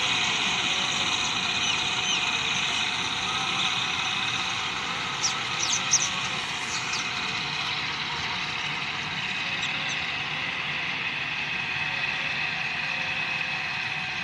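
New Holland self-propelled windrower running steadily as it mows alfalfa, a steady engine and machine noise with a high whine over it. A few short sharp clicks come about five to six seconds in.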